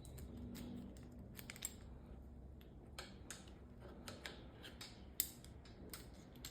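Faint, irregular small clicks and metallic taps of hand work on a bicycle brake, with one sharper click about five seconds in.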